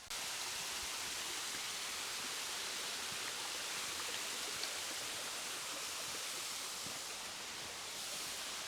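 Steady rush of flowing water from a mountain stream or waterfall, an even hiss that holds level throughout.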